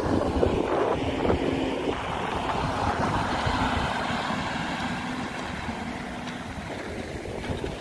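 An engine running steadily, mixed with wind noise on the microphone, easing off slightly toward the end.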